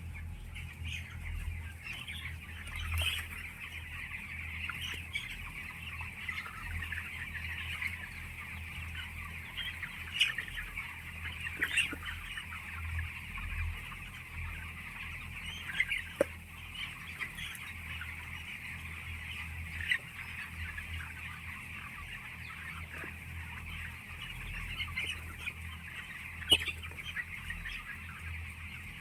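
A flock of chickens inside a poultry house clucking and chirping together in a dense, continuous chorus. A steady low hum runs underneath, with a few sharp clicks scattered through.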